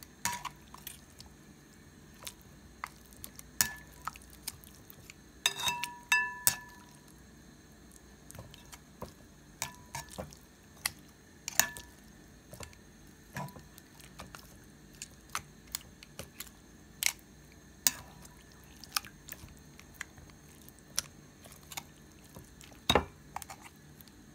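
Metal tongs clinking and tapping against a cut-glass bowl while turning marinated pork chops, in irregular knocks about once a second. A few knocks leave the glass ringing briefly, with a denser run of them about five to six seconds in.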